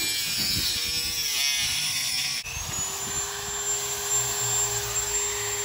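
Dremel rotary tool with a cut-off wheel cutting the mounting arm off a car's rear wiper motor, its whine wavering in pitch as the wheel bites. About halfway through, the sound changes abruptly to a steady high whine that briefly climbs and then holds.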